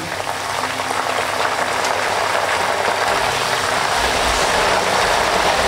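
Banana slices deep-frying in coconut oil, sizzling hard and steadily as a splash of salt water poured into the hot oil boils off. Banana chips (kaya varuthathu) are salted this way part-way through frying.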